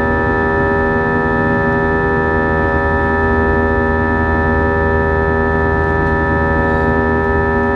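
Airbus A320's jet engines heard inside the cabin: a steady drone made of many fixed tones over a rushing noise, holding level throughout.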